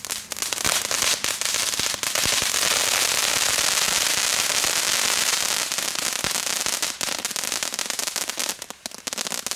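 Several category 1 crackling cones (knetterkegels) going off together: a dense, continuous crackle of many rapid little pops, thinning to scattered pops near the end as they burn out.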